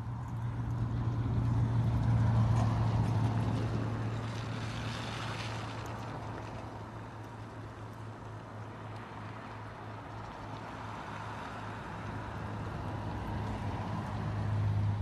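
A motor vehicle's engine running with a steady low hum. It is loudest about two seconds in, fades, and grows louder again near the end.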